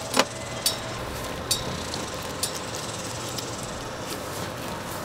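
Knife filleting a flathead catfish: several short sharp clicks and ticks over a steady hiss of background noise.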